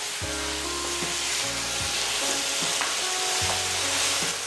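Chicken pieces in onion paste sizzling in a frying pan while being stirred with a spatula, a steady hiss. Soft background music of held notes plays underneath.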